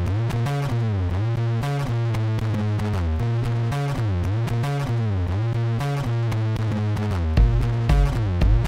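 Electronic background music: a synthesizer bass line and sweeping synth tones over a steady drum-machine beat, with heavier bass kicks coming in near the end.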